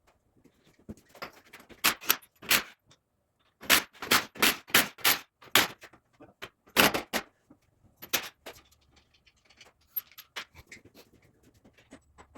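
Sharp metallic clicks and clanks of hand tools and parts being handled while working on an engine: a quick run of about six knocks roughly three a second near the middle, with scattered single clicks before and after.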